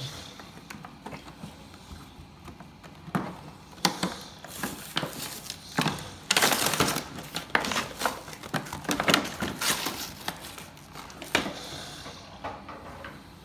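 Cardboard-and-plastic toy packaging being handled and torn open by hand: irregular crinkling, crackling and tearing, busiest about halfway through.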